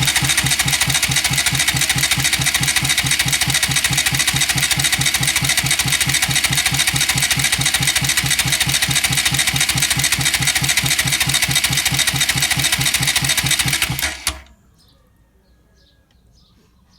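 Bajaj Rouser NS200 single-cylinder engine turned over on its electric starter with the spark plugs removed, so it spins without firing: a steady rhythmic cranking that stops suddenly about fourteen seconds in. It makes no odd noise and no knock while being turned over, with the oil rising slowly at cranking speed.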